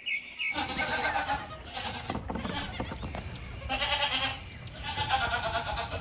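Young goats (kids) bleating, several loud bleats one after another.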